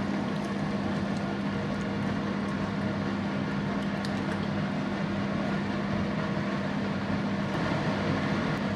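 Steady low hum with an even hiss over it, unchanging throughout, in a kitchen where coconut milk is poured into a pan of simmering chicken curry and stirred in with a spatula.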